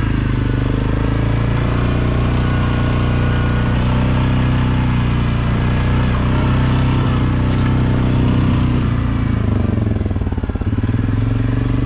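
ATV (quad) engine running steadily while riding a trail, easing off briefly about ten seconds in.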